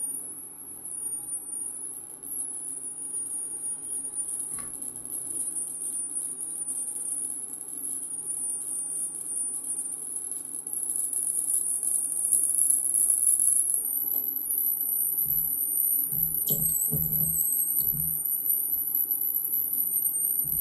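Experimental electronic noise from a no-input mixer picking up a microwave oven's electromagnetic interference. A high, wavering whistle runs over a steady low hum and rough noise, and a few low thuds come about three-quarters of the way through.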